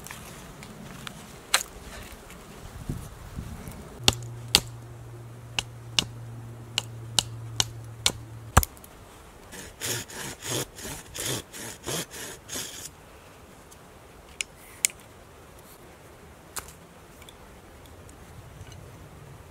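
Sharp clicks and snaps through the first half, then a fixed-blade Survival Lilly APO-1 bushcraft knife shaving a wooden stick in a run of about ten quick strokes, roughly three a second, followed by a few more clicks.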